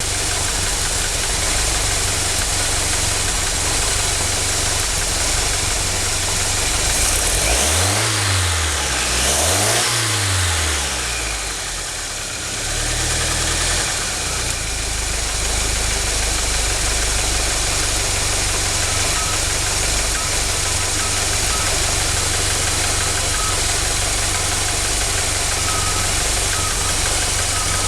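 1976 MerCruiser 3.0-litre (181 cu in, 140 hp) four-cylinder marine engine idling rough, blipped up and back down twice about eight and ten seconds in, then settling back to idle. The rough idle persists despite a complete tune-up, rebuilt carburettor and dwell and timing set.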